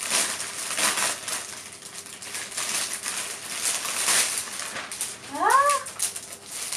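A packaging bag rustles and crinkles as it is handled and opened. About five seconds in, a Shiba Inu gives one short whine that rises and then falls.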